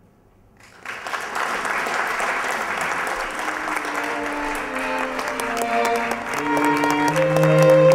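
Audience applause breaking out suddenly about a second in and going on throughout, with music of held instrumental notes coming in under it from about three seconds in.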